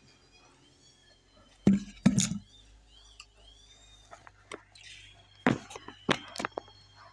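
Sharp clacks and knocks from a small piece of door hardware handled close to the microphone, in two clusters: one about two seconds in and one past the middle. Faint high chirps sound behind them.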